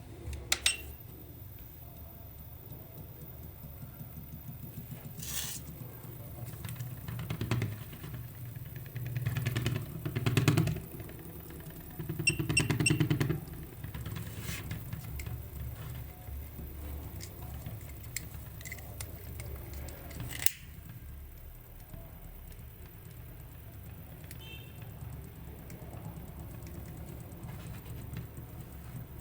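Electric buzzing in three short bursts, each about a second long, among scattered sharp clicks and snaps.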